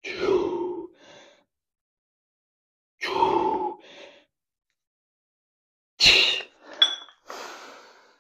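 A man's heavy, voiced exhales between or during weightlifting effort, three of them about three seconds apart. About six seconds in comes a sharp knock, then a short metallic clink.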